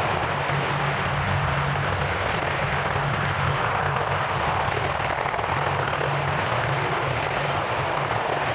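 AH-64 Apache attack helicopter's twin turbine engines and main rotor running steadily as it lifts off and hovers low.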